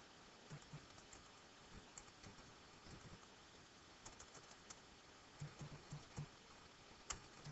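Faint computer keyboard typing: irregular key clicks in short runs, with one sharper click near the end.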